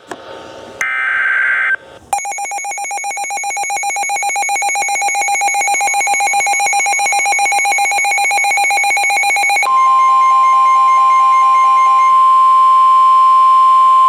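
Weather radio alert sequence. Two short buzzing data bursts of the SAME header are followed by a weather radio's rapidly pulsing alarm beep, which grows louder over several seconds. About ten seconds in, the steady, unbroken Weather Radio warning alarm tone joins it; the pulsing stops near the end while the steady tone holds. Together they signal that a new warning, a flash flood warning, is being broadcast.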